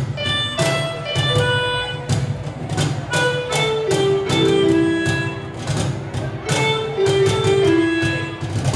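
A live band playing: cajón strokes keep a steady beat under a strummed guitar and electronic keyboards holding a melody of long sustained notes over a bass line.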